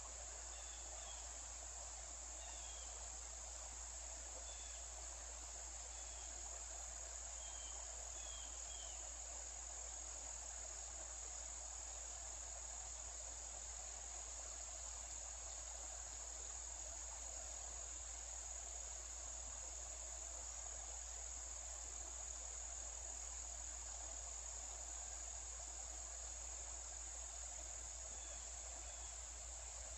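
Steady, unbroken high-pitched insect chorus, with an even soft wash beneath it from the creek's water. A few faint short chirps come in the first several seconds.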